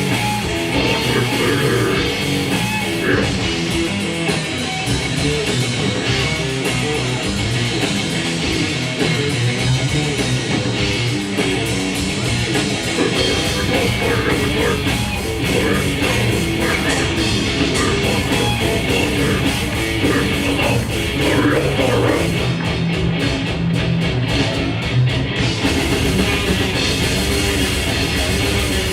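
Grindcore band playing live: distorted guitars, bass and fast drums, loud and dense throughout.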